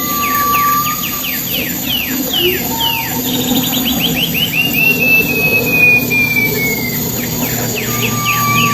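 Song of the bird known in Indonesian as pipi perak: a long clear whistle sliding slowly down in pitch, a shorter low whistle, and quick runs of sharp falling chirps. The phrase pattern repeats, starting over near the end.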